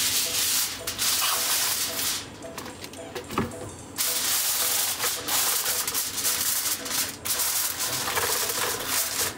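Aluminium foil crinkling and rustling as it is pulled over a roasting pan and pressed down tightly around the edges, with a lull of about two seconds a couple of seconds in.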